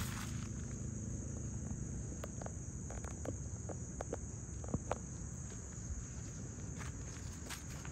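Footsteps crunching on a gravel and leaf-strewn forest trail, with a few sharp snaps in the middle, over a steady high-pitched insect chorus.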